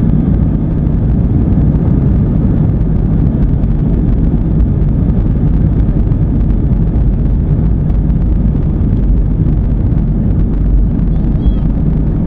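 Airbus airliner's jet engines and airframe heard from inside the passenger cabin during takeoff: a loud, steady, deep rumble.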